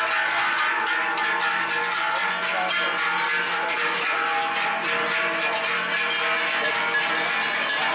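Large cowbells hung from the necks of cows walking past, clanging continuously, with many bells ringing at once in an irregular jangle.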